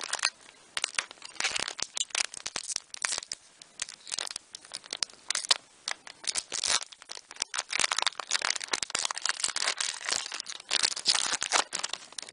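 Pokémon trading card booster pack wrapper crinkling and crackling as it is handled and torn open, a dense irregular run of rustles with short lulls.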